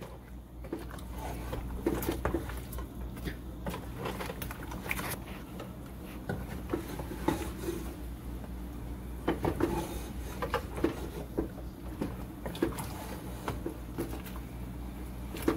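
Wooden spoon stirring chicken pieces in a metal pot, with irregular knocks and scrapes against the pot over a low steady hum.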